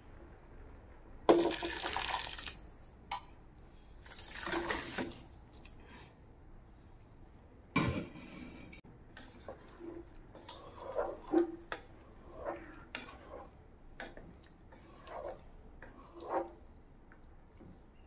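Boiled chicken and dal with their cooking liquid tipped into a pot of spiced broth: two splashing pours about a second long each, then a sharp knock. After that a wooden spatula stirs the thick curry, giving short, uneven scrapes and slops against the pot.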